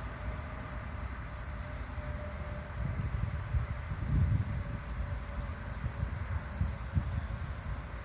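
Steady high-pitched whine and hiss that sounds like crickets, over a low, uneven rumble.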